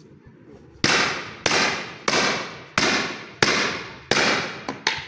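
A hammer striking a metal hole punch through curtain fabric into a wooden block, punching holes for curtain eyelet rings. Six sharp, ringing metallic blows come about two-thirds of a second apart, followed by two lighter taps near the end.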